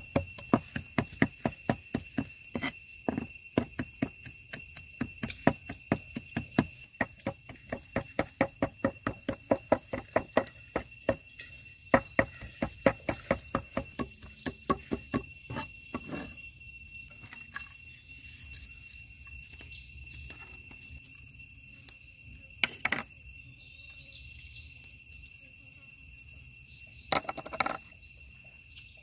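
A cleaver chopping garlic and chillies on a wooden board in quick, repeated knocks, several a second, which stop about halfway through. Crickets chirr steadily throughout, and there are a couple of short noises near the end.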